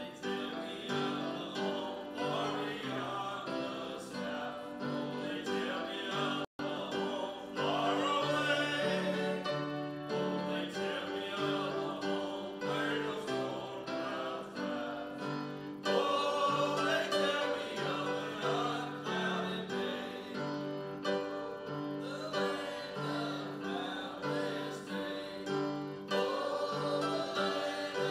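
A church hymn sung by voices to piano accompaniment, with a split-second break in the sound about six seconds in.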